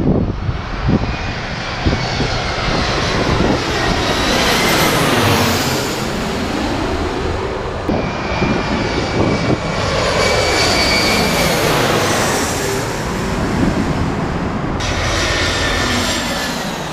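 Twin-engine jet airliners on final approach passing low overhead: the loud roar of the jet engines with a high whine over it, the sound sweeping up and down in pitch as each one passes.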